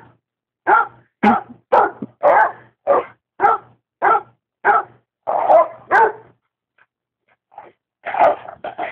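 A dog barking repeatedly, about two barks a second for roughly ten barks, then a short pause and a few more barks near the end.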